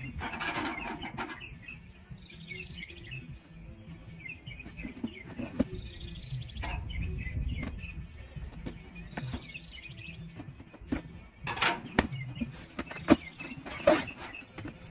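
Small birds chirping repeatedly in the background while a cardboard box is slit open along its tape with a blade and its flaps are pulled open, giving scattered scraping, clicks and a few sharp cardboard knocks, the loudest near the end.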